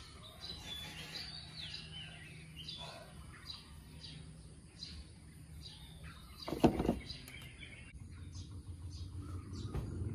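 Small birds chirping and twittering, with quick rising and falling whistles and a steady low hum beneath. One loud thump about two-thirds of the way through.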